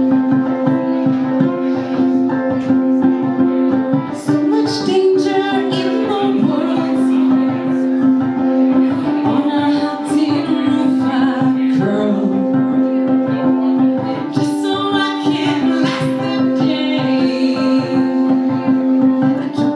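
A woman singing live, accompanying herself on ukulele.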